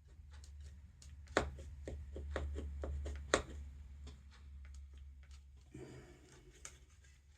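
Small metal parts of a vintage blower motor clicking and knocking as they are handled: a quick run of about eight clicks, the first and last the loudest, then a brief rubbing scrape near the end.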